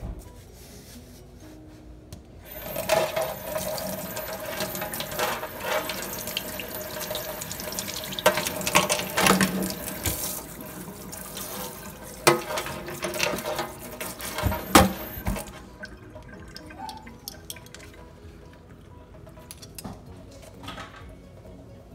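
Kitchen faucet's pull-out sprayer running into a stainless sink, water splashing as a dog's head collar is rinsed under it by hand. The water comes on a couple of seconds in and shuts off about fifteen seconds in, with a few knocks along the way.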